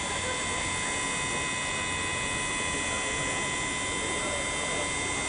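Steady electrical hiss and hum with several thin, high, steady whines and no distinct event.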